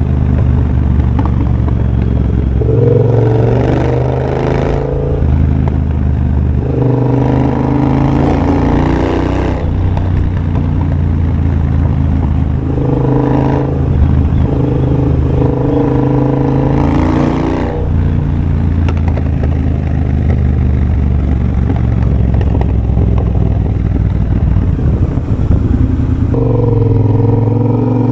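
2023 Triumph Bobber's 1200 cc parallel-twin engine running through a de-catted X-pipe and Motone Shorty aftermarket exhaust while riding, pulling hard in several bursts with rising pitch and easing off between them.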